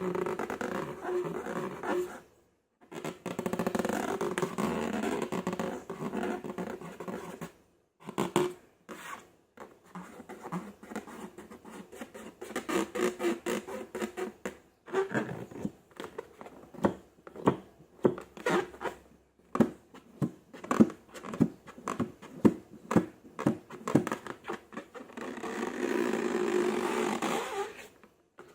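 Slime being worked by hand: wet squishing and stirring at the start and end, with a long run of sharp sticky clicks and pops through the middle.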